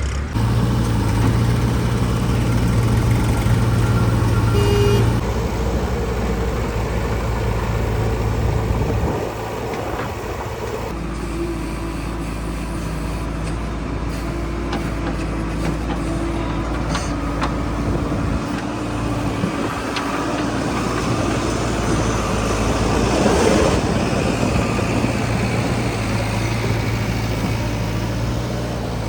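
Diesel engine of a JCB 3DX backhoe loader working, its steady note stepping up and down several times as the load changes.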